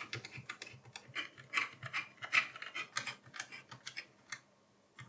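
Small screwdriver turning the screws that hold the CPU heatsink down on a mini PC's motherboard: a quick, irregular run of scratchy clicks and rasps that stops about four and a half seconds in.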